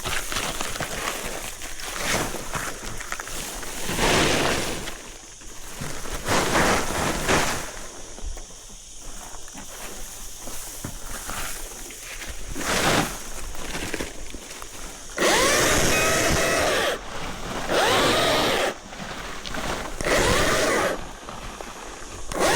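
Battery chainsaw cutting branches in several short bursts in the second half, its motor whine dipping and recovering in pitch as the chain bites into the wood. Before that come irregular rustling and handling noises.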